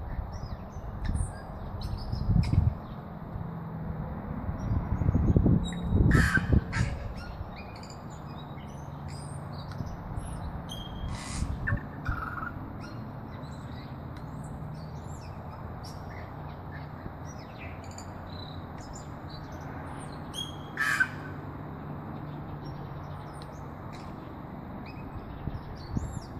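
Tui singing: scattered short, high notes and clicks, with a few louder calls about six, eleven and twenty-one seconds in. A low rumble in the first several seconds gives way to a faint steady low hum.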